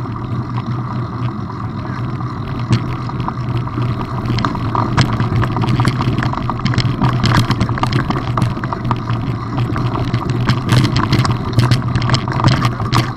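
Bicycle rolling along a gravel track: a steady rumble of tyres and wind on the camera's microphone, with many sharp clicks and rattles from the tyres and bike over loose stones. The rattling grows thicker from about four seconds in.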